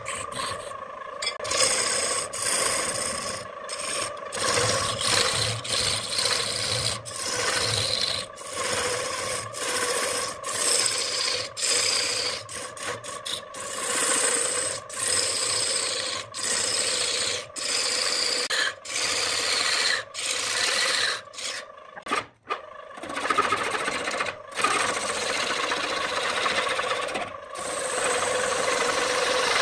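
A wood lathe spins a redwood vase blank while a turning tool cuts it: a rasping hiss of shavings tearing off over a steady motor hum. The cut breaks off again and again for a moment as the tool lifts, then runs unbroken through the last few seconds.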